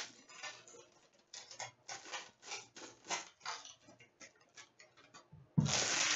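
A hockey card pack being opened by hand: a series of light clicks and crinkles about twice a second, then a loud ripping tear near the end.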